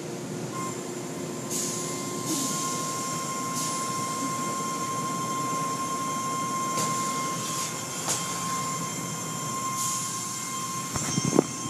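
Automatic car-wash tunnel machinery running: a steady motor whine under swishing hiss from the cloth wash curtains and water spray, which swells and fades every second or few. A few sharp knocks near the end stand out as the loudest sounds.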